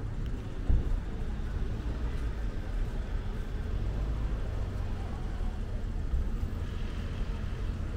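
Steady low rumble of street traffic passing on a city street, with a brief thump a little under a second in.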